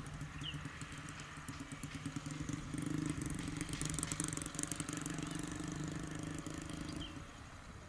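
Train passing at speed: a steady low engine hum under a rapid clatter of wheels, loudest from about three seconds in and dying away about seven seconds in.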